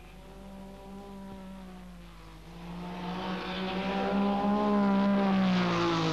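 Rally car engine running hard at high revs, growing louder as the car approaches and passes.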